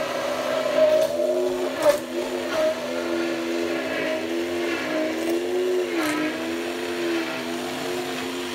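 Electric stick blender running in a plastic beaker, blending the thin soya-milk base for vegan mayonnaise. The motor's whine wavers up and down in pitch as the blade works through the liquid, with a few sharp clicks, about two seconds in and again about six seconds in.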